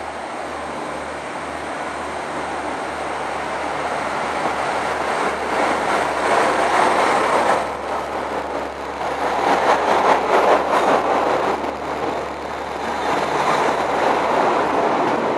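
Northern Ireland Railways Class 3000 (CAF C3K) diesel multiple unit running into the platform and past at close range: a steady low engine hum under the rumble and hiss of the wheels, growing louder and swelling three times as the carriages go by.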